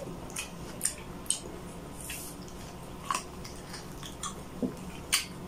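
Close-miked eating sounds: wet chewing and lip smacking on saucy pork adobo eaten by hand, heard as irregular short, sharp clicks and squelches, the loudest near the end.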